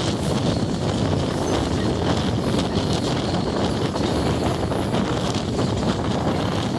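Steady rumble of a train in motion, with wind buffeting the microphone.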